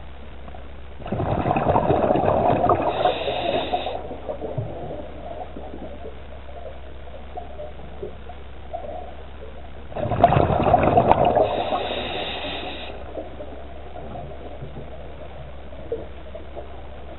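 Scuba diver's breathing through the regulator, heard underwater: two breaths about nine seconds apart, each a loud rush of bubbling that lasts about three seconds. A steady low hum runs underneath.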